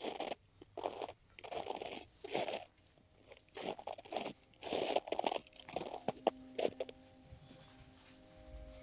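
Footsteps crunching on icy, frozen snow at a slow walking pace, about one step every two-thirds of a second, thinning out near the end.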